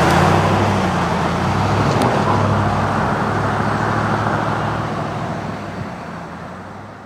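A motor vehicle engine running with a steady low hum under loud rushing noise, fading away over the last two seconds or so.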